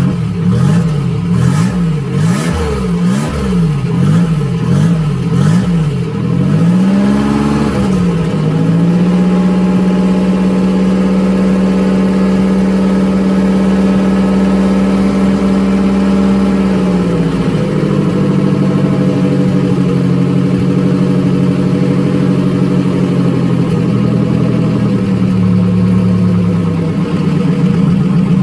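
Freshly rebuilt turbocharged 3400 V6 in a Pontiac Fiero, with a new turbo cam, running after its first start. For the first seven seconds it is revved up and down about once a second. Then it is held at a steady fast idle, which eases down a little about two-thirds of the way through and falls again near the end.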